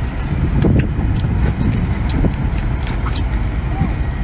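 Mantis shrimp shell crunching and cracking as it is bitten and peeled by hand, a run of irregular sharp clicks over a steady low rumble.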